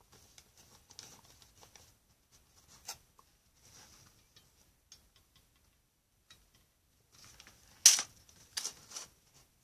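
Handling sounds of craft work: small clicks, taps and rustles of a hot glue gun, plastic film and foamboard, with a sharp knock about eight seconds in and a few smaller knocks just after.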